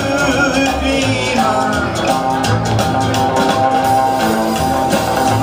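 A band playing upbeat swing dance music with guitar, bass and drums, the bass line stepping from note to note.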